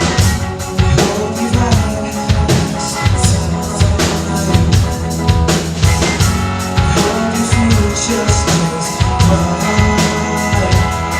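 A live band playing a song, with a drum kit keeping a steady beat over bass and sustained instrument notes.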